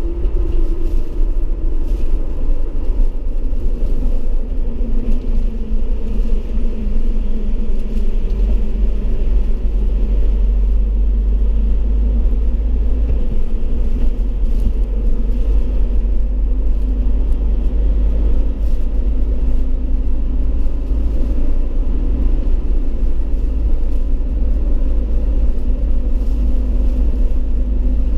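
Mitsubishi Triton HDX pickup driving, heard from inside the cabin: a steady low rumble of engine and road noise with a faint engine hum.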